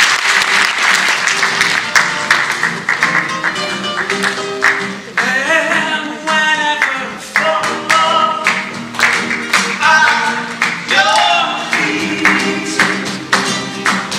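Live acoustic flamenco-style music: a nylon-string guitar played along with men's voices singing and sharp rhythmic hand clapping (palmas). Audience applause dies away in the first couple of seconds as the singing comes in.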